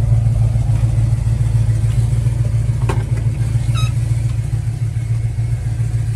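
Classic Dodge Coronet engine idling with a steady, lumpy low rumble. A single sharp click about three seconds in.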